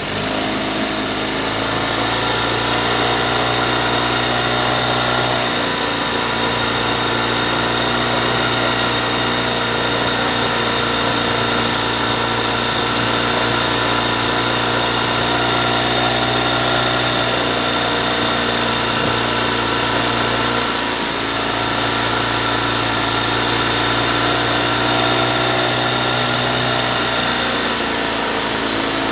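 Outboard motor of a small boat running steadily at cruising speed: a continuous engine drone with an even whine above it.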